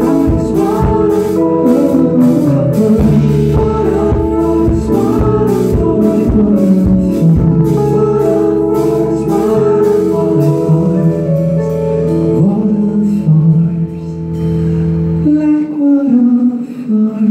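Live concert performance of an R&B song with a singer, a band with guitar and drums. About fifteen seconds in, the bass and drums drop out, leaving a held note as the song ends.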